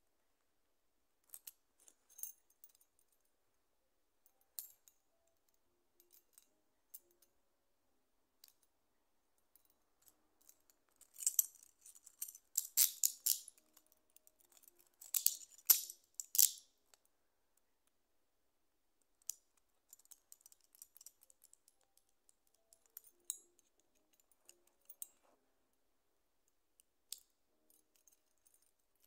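Steel handcuffs being handled: scattered light metal clicks, with several seconds of rattling and clinking of the cuffs near the middle.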